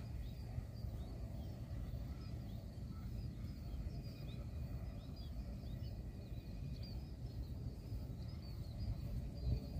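Small birds chirping, many short high calls scattered all through, over a steady low outdoor rumble.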